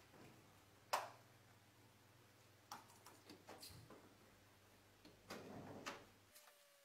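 Quiet room with the low hum of an electric fan's motor and scattered knocks and clicks, the loudest about a second in. Just after six seconds the hum cuts off and a tone starts falling in pitch as the fan motor spins down after being switched off.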